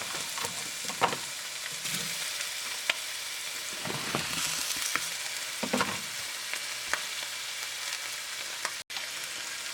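Bell peppers sizzling in olive oil in a pan on medium heat, with a utensil stirring and scraping them now and then. The sound cuts out for an instant near the end.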